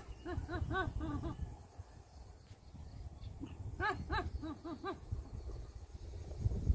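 Short, pitched animal calls in quick runs of five or six: one run at the start and another about four seconds in.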